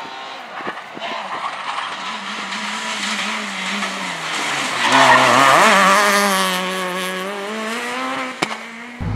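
Rally car at speed approaching and passing close by. Its engine note dips, then climbs sharply about five seconds in as the driver accelerates, and is loudest there before easing off. The sound cuts off abruptly near the end.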